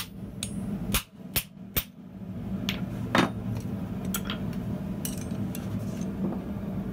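Hand hammer striking a hot copper hammer head on a steel anvil: one blow at the start, three quick blows about a second in, and the loudest blow a little past three seconds. Lighter metal clinks follow as the hammer is set down and tongs handle the piece on the anvil, over a steady low hum.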